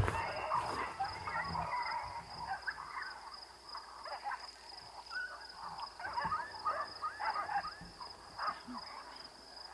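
Animal calls: many short squeals rising and falling in quick runs, thickest in the second half, over a steady high-pitched insect-like buzz.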